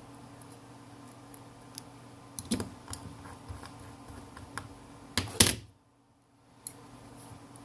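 Scattered light clicks and taps of small tools and phone parts being handled on a workbench, with a louder knock about five seconds in, after which the sound drops out briefly.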